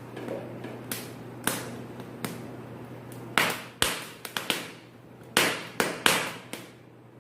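Corn kernels on a cob roasting over a gas flame, crackling and popping in about a dozen sharp irregular cracks, coming faster and louder in the second half as the kernels char.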